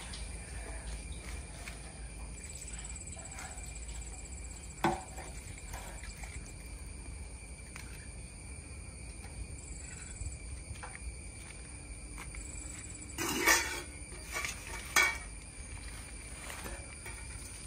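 Steady high drone of insects, with a few sharp knocks and clinks of a metal water pot being hauled up and set on the stone rim of a well, the loudest around 13 and 15 seconds in.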